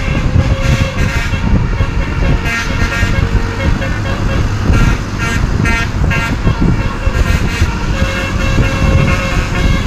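Basuri (telolet) musical horn on a vehicle playing a tune in short, separate notes, over continuous engine and road noise.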